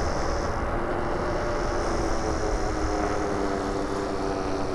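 Super73 electric fatbike under way: a steady hum from the motor and fat tyres that sinks slightly in pitch as the bike slows a little, over a low wind rumble on the microphone.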